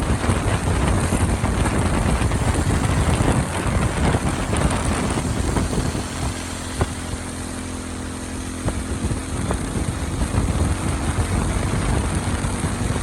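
Motorcycle running on the road with wind rushing over the microphone. About six seconds in it eases off to a quieter, steadier engine note, then picks up again a couple of seconds later.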